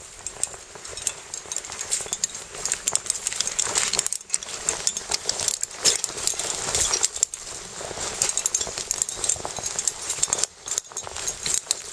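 Crunching, rustling and clicking of someone moving over loose limestone rubble and dry leaves, with small stones clinking, broken by a couple of short pauses.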